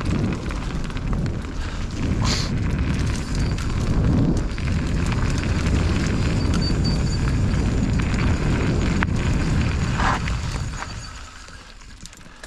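Wind buffeting the microphone of a mountain bike descending a rough dirt trail, a heavy low rumble with scattered rattles and knocks from the bike. It dies away sharply near the end as the bike slows.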